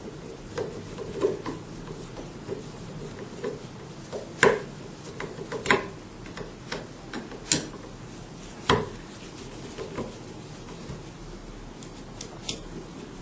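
Scattered clicks, scrapes and knocks of hand tools and small metal parts being handled while the four screws holding an oil-free vacuum pump's piston-cup clamping plate are driven back in, with four sharper knocks in the middle.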